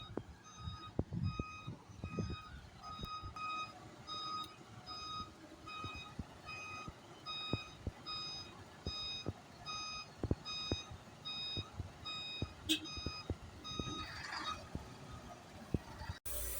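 Vehicle reversing alarm beeping in a fast, regular series, over scattered light knocks and clicks; the beeping stops near the end, followed by a short hiss.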